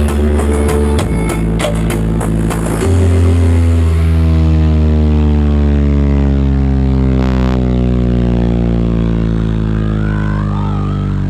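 Loud electronic music from a carnival parade sound system, dominated by very heavy bass. A few sharp hits come in the first seconds, then a deep bass note is held, slowly sliding down in pitch.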